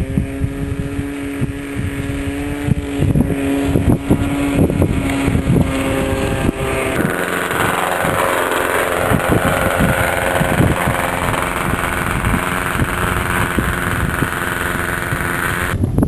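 Small model-aircraft engine of a radio-controlled autogyro running steadily, with wind buffeting the microphone. About seven seconds in its pitch dips and then climbs again, and the sound changes abruptly near the end.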